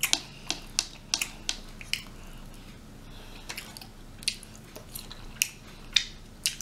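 Close-miked chewing and mouth sounds while eating rotisserie chicken: sharp, irregular wet clicks and smacks, about two a second.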